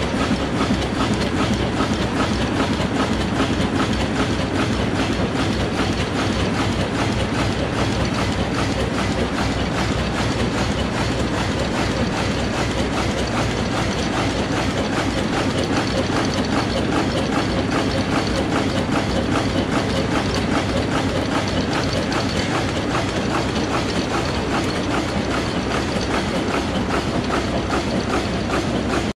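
Pacer-356SUP stand-up pouch making machine running at production speed, making zippered pouches: a steady, rapid mechanical clatter of many clicks a second.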